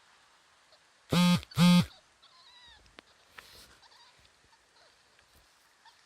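Two loud, short animal calls in quick succession about a second in, followed by faint bird chirps.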